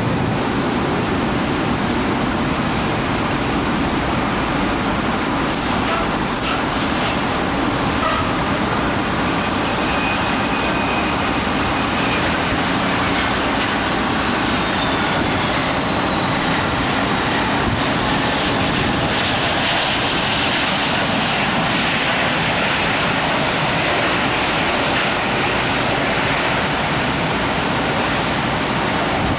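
Steady noise of jet aircraft engines at an airport in heavy rain, with a high whine falling in pitch about halfway through, as of a turbine spooling down.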